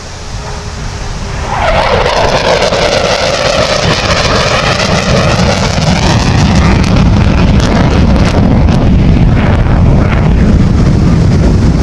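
Eurofighter Typhoon's twin EJ200 jet engines in afterburner as the jet flies past. The roar rises to full strength about two seconds in with a sweeping whoosh, then settles into a deep crackling rumble as it moves away.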